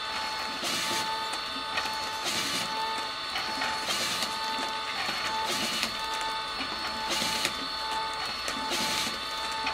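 LAB510 automatic labelling machine running as it feeds and labels stand-up pouches, with a steady mechanical whine and a short rustling burst that repeats about every second and a half, one per cycle.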